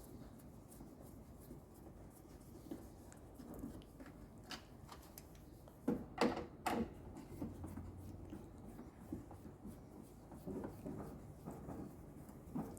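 Faint rubbing and light clicks of hand tools and hands working on the metal and plastic front panel of a washing machine, with a cluster of about three sharp knocks about six seconds in.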